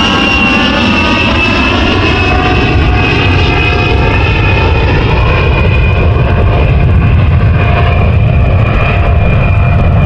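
Loud aircraft engine noise: a steady jet-like whine that slowly drops in pitch over a low rumble.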